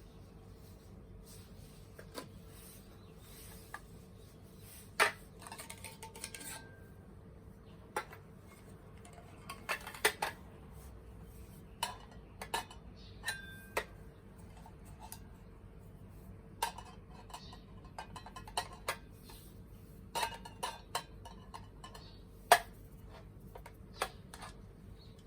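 Metal camp cookware and utensils being handled: scattered clinks and knocks, a few ringing briefly. The loudest knock comes near the end.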